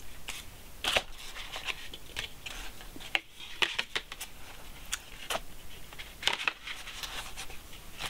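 Cardboard palette box and paper packaging being handled: a string of short rustles and light taps, spaced irregularly.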